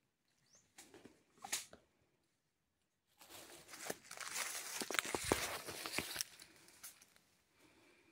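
Leaves and twigs rustling and crackling as hands work sticks and a vine into the ground to set a snare trap. A couple of short rustles come about a second in, then a longer stretch of rustling with sharp snaps from about three seconds in to about seven.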